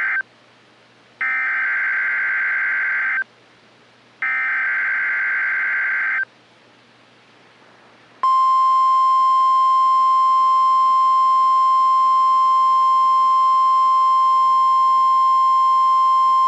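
NOAA Weather Radio emergency alert signal: the end of one SAME digital header burst, then two more identical buzzing data bursts about two seconds long with a second's gap between them, and from about eight seconds in the steady 1050 Hz warning alarm tone. Together they are the coded header and attention tone that introduce a tornado watch broadcast.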